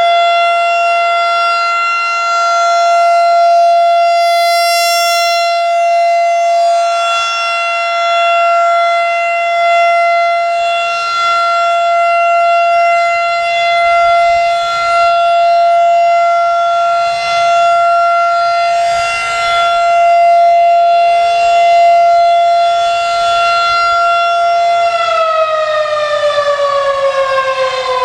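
Federal Signal 2001-SRN outdoor warning siren sounding its steady Alert tone, swelling and fading in loudness as the siren head rotates. About 25 seconds in the tone ends and the siren begins winding down, its pitch falling.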